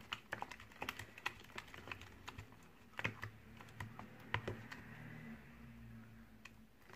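Rubber spatula stirring thickening homemade slime in a plastic tub: irregular light clicks and taps as the spatula knocks and scrapes against the tub, a few a second. The mixture is being worked until the laundry detergent is absorbed.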